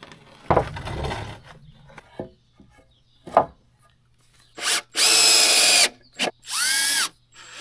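Cordless drill driving screws into wood: a brief clatter of handling near the start, then three short runs of the motor whining under load in the second half, each under a second.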